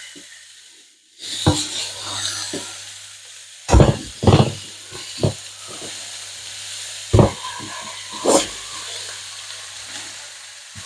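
Pork rib pieces sizzling in a hot frying pan as more are laid in, with several sharp knocks of meat set down in the pan.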